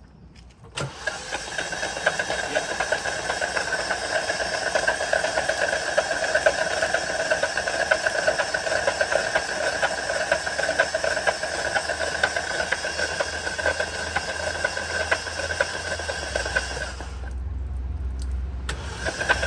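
Starter motor cranking a flooded car engine over with the spark plugs out: a steady whirr with a hiss, spinning water out of the cylinders after the car was hydrolocked in floodwater. It starts abruptly about a second in and stops shortly before the end.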